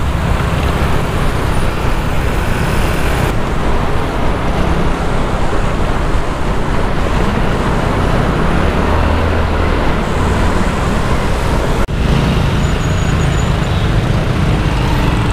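Motorcycle riding in traffic: the engine running steadily under a dense rush of wind on the microphone, with surrounding cars and scooters.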